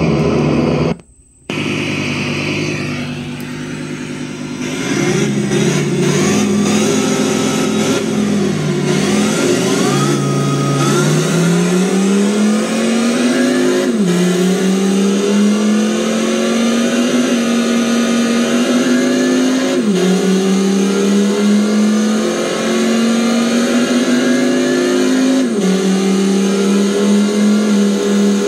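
Ninebot BT2928 engine-sound speaker on an electric kickscooter playing a simulated engine effect. It cuts out briefly about a second in, then the engine sound starts and climbs in pitch, dropping back suddenly three times like gear shifts before holding a steady pitch near the end.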